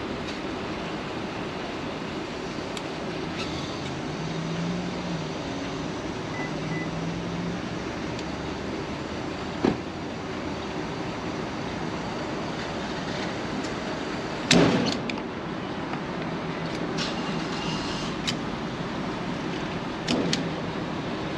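Gasoline running from a pump nozzle into a plastic gas can in a steady rushing flow, with a sharp knock about two-thirds of the way through and a couple of lighter knocks.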